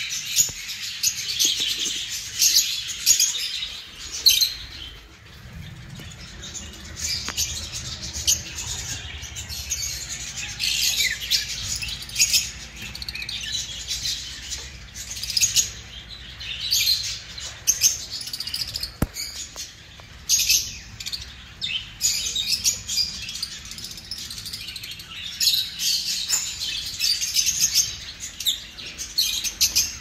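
Lovebirds chirping in quick, high-pitched bursts, with short lulls. A low rumble runs underneath from about five seconds in.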